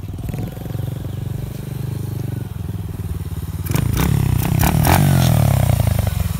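The air-cooled single-cylinder four-stroke engine of a Coolster 125cc pit bike running as it is ridden. It gets louder about four seconds in as the bike comes close, with a few clattery knocks, and then its pitch drops.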